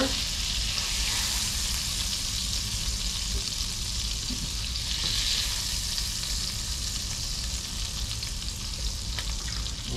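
Small trout fillets sizzling steadily in olive oil and butter in a hot cast-iron skillet, frying on the pan's leftover heat after the burner has been switched off.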